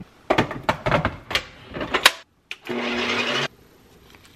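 A quick run of clicks and knocks as a pint container is fitted into a Ninja Creami ice cream maker. After a short gap comes a brief burst of the machine's motor running with a steady hum, cut off suddenly.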